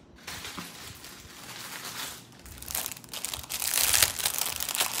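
Crinkling of plastic jewelry packaging being handled, in many small crackles that grow louder in the second half.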